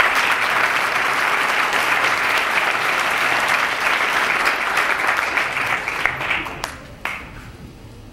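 Audience applauding, a steady wash of many hands clapping that dies away about seven seconds in.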